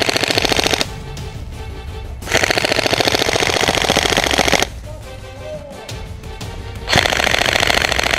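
An airsoft electric rifle firing on full auto in three rapid bursts: a short one that stops just under a second in, a longer one of over two seconds in the middle, and a third starting near the end.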